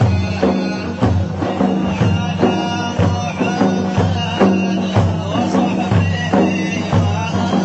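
Middle Eastern folk music with a steady beat of about two strikes a second under held low notes and a melody above them.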